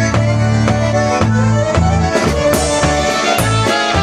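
Live polka band music: a Chemnitzer-style concertina plays the melody over a bouncing bass line and a steady two-beat rhythm.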